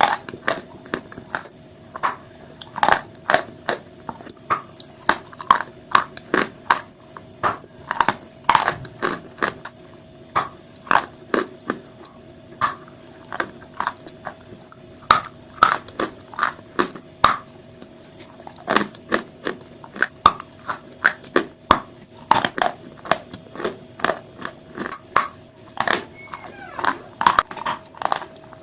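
Chalk pieces mixed with paste being crunched over and over: sharp, crisp, crumbling crunches, a few a second at an uneven pace.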